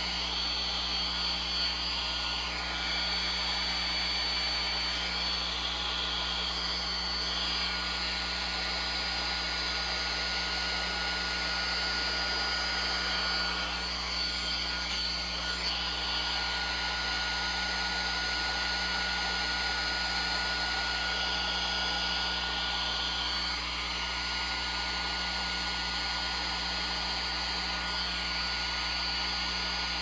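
Small handheld blow dryer running steadily: a constant rush of air with a thin, high whine over it.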